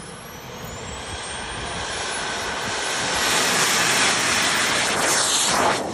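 A radio-controlled model jet's turbine spools up on its takeoff roll. A high whine climbs in pitch under a growing jet roar, which is loudest as the jet passes close, about five seconds in.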